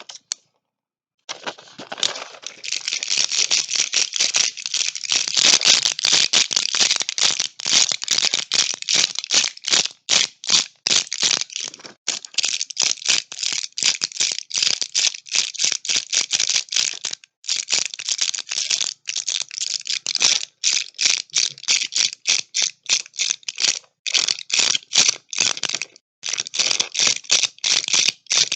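Medicine packaging being handled, making a long run of rapid crackling clicks, several a second, with a few short pauses.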